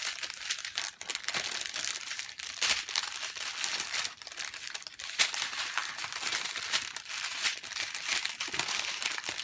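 Small plastic bags of diamond painting drills crinkling and crackling as they are handled and stuffed back into their packaging, a continuous run of small crackles.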